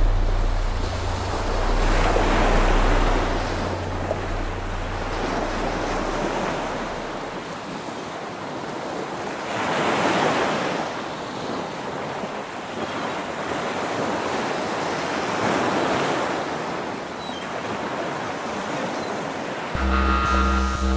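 Ocean surf on a sandy beach: three waves break and wash in, each swelling and fading over a few seconds. A low music drone fades out over the first few seconds, and music comes back in near the end.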